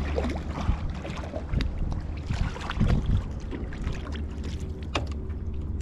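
Steady low rumble of wind on the microphone over water noise around a boat, with a few sharp knocks and clicks, the clearest about five seconds in.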